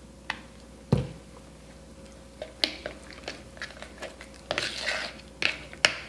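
A click and then a single loud thud in the first second. From about two and a half seconds in, a spoon stirs and scrapes thick goat cheese and honey in a plastic measuring cup, giving irregular clicks and wet, squishy scrapes.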